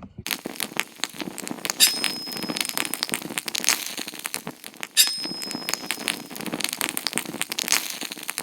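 Dense crackling made of many fine clicks, with two sharper snaps about three seconds apart, each followed by a brief thin high tone.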